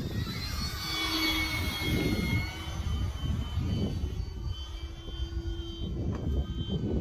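Electric motor and propeller of a radio-controlled E-flite Focke-Wulf FW-190 model in flight, a high whine that shifts in pitch as it passes, with wind buffeting the microphone.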